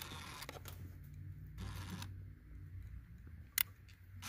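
Wire handling at a car amplifier's terminal block: faint rustling and small clicks as the remote wire is fed in, over a low steady hum, with one sharp click about three and a half seconds in.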